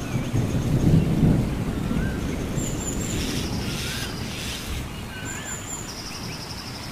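Low rumbling noise on the microphone, loudest in the first second or so and then fading. Behind it a bird gives short rising-and-falling whistles three times, insects keep up a high pulsing buzz, and there is a brief rushing hiss about three to four and a half seconds in.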